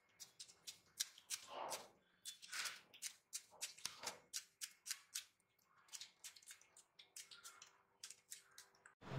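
Scissors snipping through betel leaves, a rapid, irregular run of sharp snips with the soft rustle of the leaves being handled between them. Near the end a louder steady noise cuts in abruptly.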